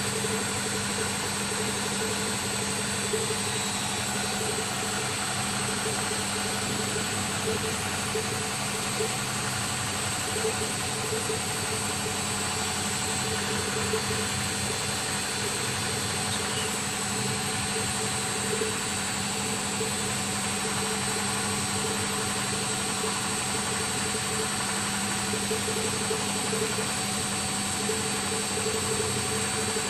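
Laboratory two-stage reciprocating air compressor (MP 203 air-water-cooled test set) running steadily on its electric motor, a continuous even running sound, pumping air into its closed-off air receiver to build pressure.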